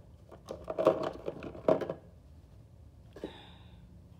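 Plastic toy figures and toy trees clicking and rattling against each other and the plastic bin as they are handled and pulled out. The clatter lasts about two seconds and then stops, with one faint click near the end.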